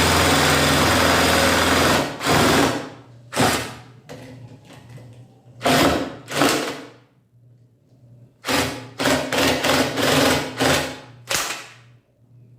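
Cordless screwdriver driving a reciprocating jigsaw attachment against pine, with the blade struggling to cut. It runs steadily for about two seconds, then in around ten short start-stop bursts.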